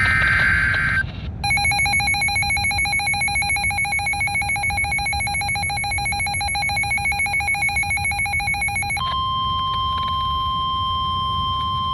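Emergency Alert System broadcast tones. About a second in, the last SAME data burst ends. After a short gap, the two-tone EAS attention signal sounds for about seven and a half seconds, wavering about three times a second. It then switches to the steady single 1050 Hz NOAA Weather Radio warning alarm tone, which signals that a warning message follows.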